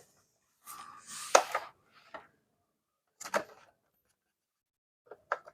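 Handling noises as a small microphone is worked free of its packaging: a few short scrapes and clicks, the loudest about a second and a half in, and a couple of small clicks near the end.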